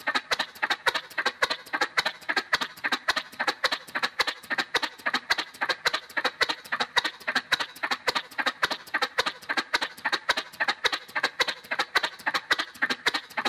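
Cartoon motorcycle sound effect: a rapid, even run of sharp clicky pulses, about five a second, at a steady level like a little engine puttering along.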